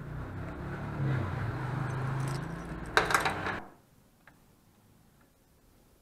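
Sharp plastic clicking and rattling as a blade fuse is pushed back into a car's engine-bay fuse box, loudest about three seconds in, over a steady low hum. The sound cuts off suddenly about three and a half seconds in, leaving near silence.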